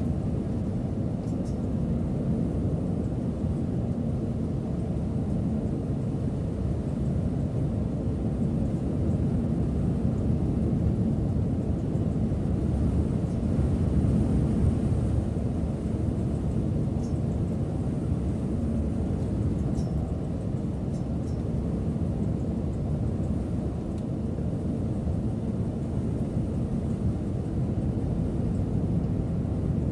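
Setra S 531 DT double-decker coach under way: the diesel engine and tyres give a steady low rumble of driving noise, swelling a little about halfway through. A few faint ticks come through the rumble.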